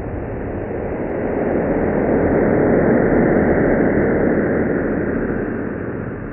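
Sonification of the Event Horizon Telescope image of the black hole Sagittarius A*: a dense, noisy rumbling drone that swells to a peak about halfway through and then fades. The rise and fall in loudness stands for brighter and dimmer parts of the glowing ring as the radar-like sweep goes round it.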